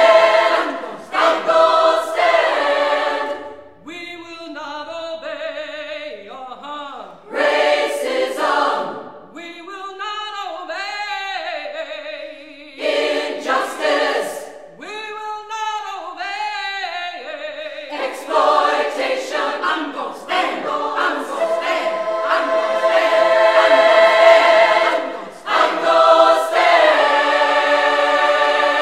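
Women's choir singing a cappella. After a full chord at the start, a single voice leads a quieter middle passage with the choir answering. The full choir returns for loud, sustained chords near the end.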